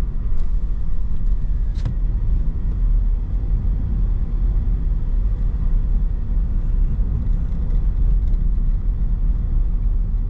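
Steady low rumble of a car driving, with a single sharp click about two seconds in.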